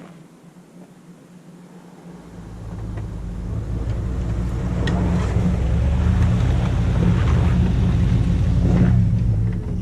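Chevy 2500HD pickup's 8.1-litre V8 engine: a faint low hum at first, then about two seconds in the engine rumble builds to a loud steady drone under load, easing slightly near the end.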